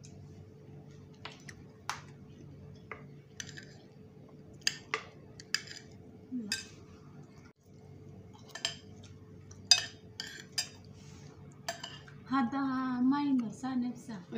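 Metal spoon clinking and scraping against a ceramic plate while rice is eaten, in scattered sharp clicks. A person's voice is heard for about two seconds near the end.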